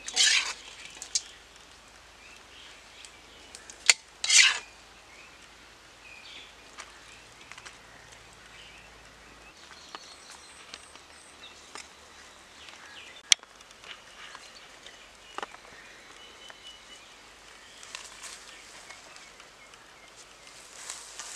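Metal ladle scraping against a wok in two short bursts, at the start and about four seconds in, then a few light clicks against quiet outdoor background.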